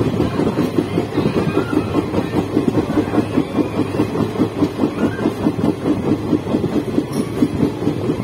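Wheels of an Indian Railways passenger coach running at speed on the rails, heard at the open doorway: a steady, rapid rhythmic clatter.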